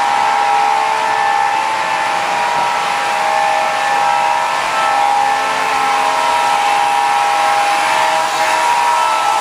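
Model train layout running: a steady whir and rumble of O-gauge trains on the track, with a held multi-note tone from a locomotive's electronic sound system that comes on at the start and lasts about nine seconds.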